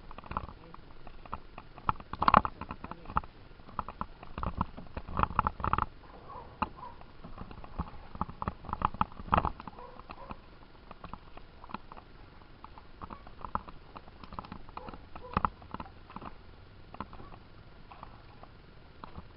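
Canoe paddling: irregular knocks of a paddle against the canoe hull mixed with paddle splashes, with louder clusters about two, five, nine and fifteen seconds in.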